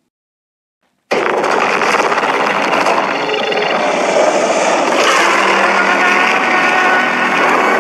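Dragon-Dorah sound effect: after a second of silence, a loud, long, harsh and gritty sound with a rough droning pitch starts and holds steady.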